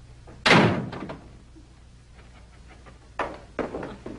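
A wooden door slams shut about half a second in. Near the end come a couple of fainter knocks as a door is worked.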